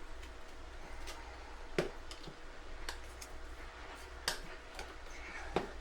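Scattered light clicks and taps, about five over several seconds, from metal tire irons working a dirt bike tire's bead over the wheel rim.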